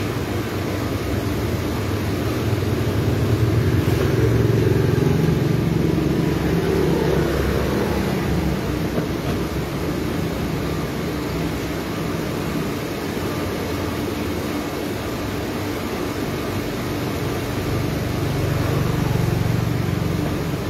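Road traffic passing on the street: engine and tyre noise swells as a vehicle goes by about three seconds in and again near the end, over a steady low hum.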